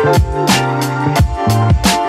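Background music with a steady drum beat and sustained deep bass notes.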